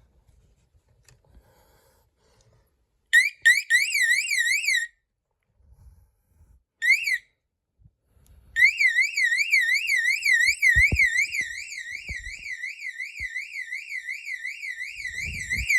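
Electronic fire alarm warning siren sounding a fast, high-pitched warble, about three or four sweeps a second. It sounds briefly twice, then comes on for good about nine seconds in, reading 86 decibels on a meter 10 feet away. A few low knocks come about eleven seconds in.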